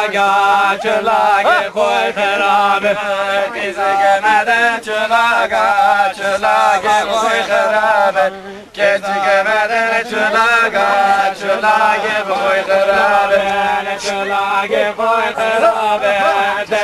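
A group of voices singing a folk song together, the sung line running on with a short break about eight and a half seconds in.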